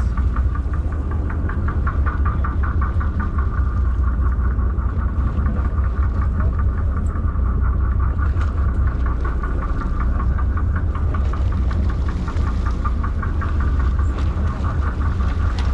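Sportfishing boat's engine running steadily: a constant low rumble with a fast, even pulse over it.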